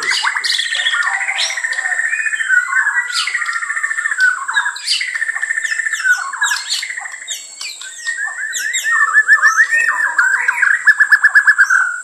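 Several caged songbirds singing and calling at once: a dense mix of chirps, whistled phrases and fast warbling trills. Near the end one bird gives a loud, rapid run of repeated notes.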